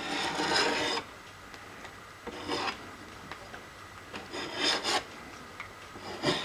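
Steel scribe scratching layout lines into thin sheet metal: four scratching strokes about two seconds apart, each with a faint high squeal.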